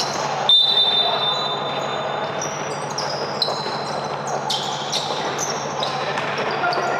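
Basketball game in a hall: many short, high sneaker squeaks on the court, with a ball bouncing now and then.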